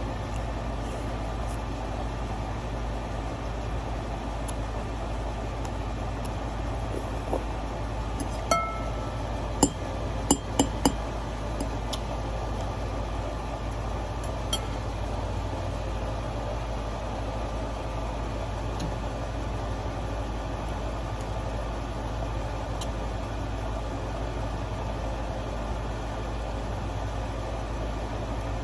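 A steady low hum, with a cluster of sharp clinks of tableware about 8 to 11 seconds in and one more near 15 seconds.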